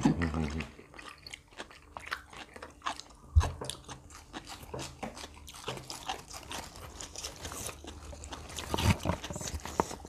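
Close-up chewing and crunching of crisp fresh raw vegetables and herbs eaten with grilled pork salad: a run of short, sharp crunchy bites and mouth clicks.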